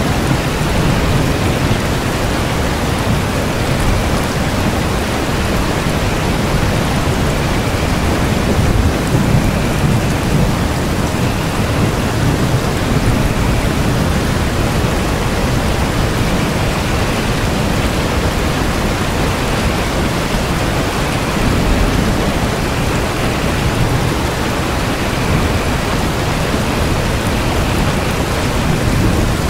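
Steady rain falling, an even hiss with a deep low rumble underneath that swells slightly now and then.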